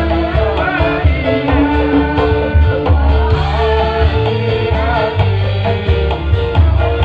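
Music with a singing voice wavering over a loud, steady bass beat.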